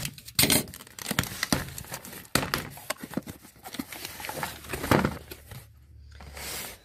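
A cardboard shipping box being opened by hand: packing tape tearing, flaps pulled open, and a smaller cardboard product box slid out and set down, with crinkling, scraping and a series of light knocks.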